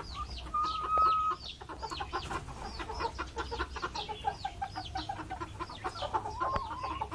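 Backyard chickens: a rapid, continuous stream of high-pitched chick peeps over the low clucking of hens. About half a second in, one bird gives a long, steady call, the loudest sound.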